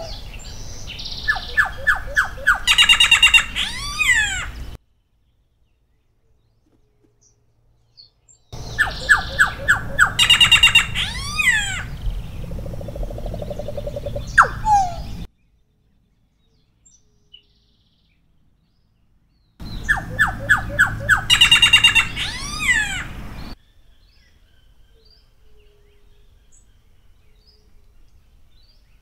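Solitary black cacique singing three bouts of song, each a run of quick repeated notes followed by several sweeping whistles, with silent pauses between the bouts.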